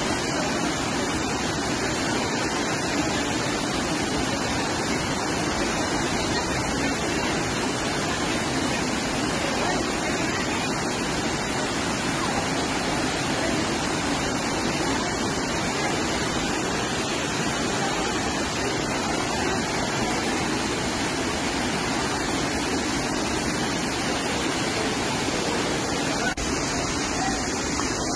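Waterfall: water pouring over rock ledges and a stepped cascade, a steady, even rush of falling water.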